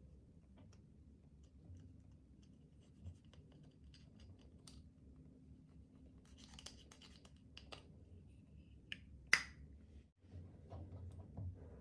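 Pressed eyeshadow being scraped and chipped out of its compact with a plastic tool: faint scratching and small crumbly clicks, busiest a little past the middle, with one sharper click about nine seconds in.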